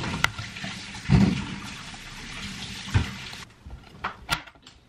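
Water running with a steady hiss, which stops about three and a half seconds in; two dull knocks come through it, and a few light clicks follow.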